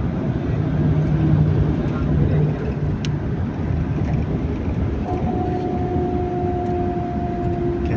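Steady road and engine noise inside a moving coach on a highway, with trucks passing close alongside. A low hum sits under it for the first couple of seconds, and a steady, even-pitched tone with an overtone comes in about five seconds in.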